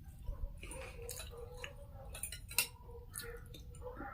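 Quiet eating sounds: scattered small clicks and taps of food and utensils, with soft chewing, over a faint steady hum.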